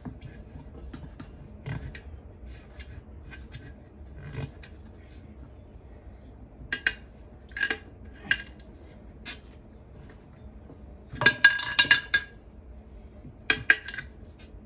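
Metal tire levers clinking and scraping against an alloy wheel rim while a tire bead is levered on. Scattered ringing metallic clinks, with a rapid run of them about eleven seconds in and two more near the end.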